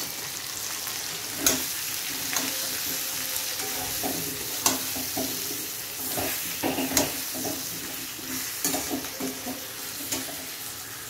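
Potatoes, tomato and green chilli sizzling in hot oil in a metal kadai as powdered spices are stirred in with a metal spatula, which scrapes and knocks against the pan many times at irregular intervals.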